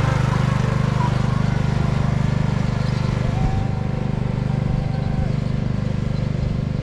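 Ride-on lawn mower engine running steadily with a fast, even pulse, growing quieter and duller about halfway through as the mower drives away.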